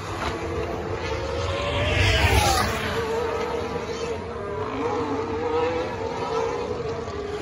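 Racing car engines on a circuit, their pitch sliding as the cars pass. The loudest pass is about two seconds in, and an engine note holds steady through the middle.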